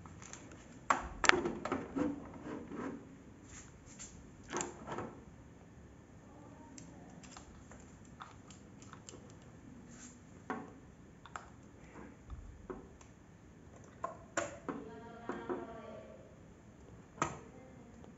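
Irregular clicks and light knocks as a handheld multimeter and its test probes are handled and the probe tips are pushed into an extension board socket. The loudest knocks come about a second in.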